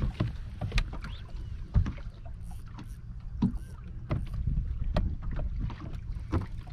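Wind and water noise aboard a bass boat, a low steady rumble, with a few sharp knocks and clicks scattered through it.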